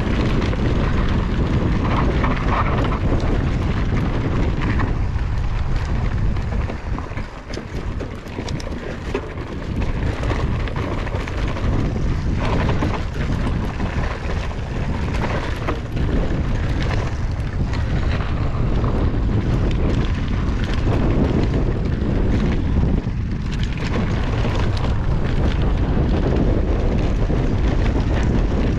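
Wind rushing over a helmet- or bike-mounted GoPro microphone as a Commencal Meta HT hardtail mountain bike rolls down a rough dirt trail, its tyres crunching and the bike rattling and knocking over bumps. The rush dips briefly about a quarter of the way in.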